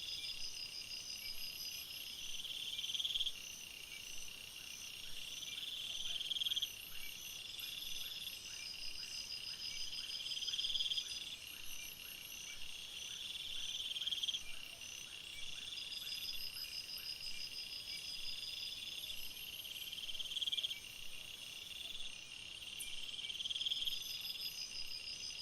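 Night-time insect chorus of crickets trilling in layered high-pitched pulses. The loudest call swells in bursts of about a second every few seconds, and a faint rapid ticking runs for several seconds in the first half.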